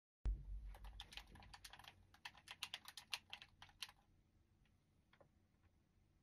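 Rapid run of small plastic clicks, like fast typing or button mashing, for about four seconds, followed by a few scattered single clicks.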